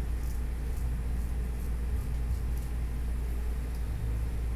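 Faint short scrapes of a straight razor cutting stubble on the upper lip and cheek, several strokes, over a steady low rumble that is the loudest sound.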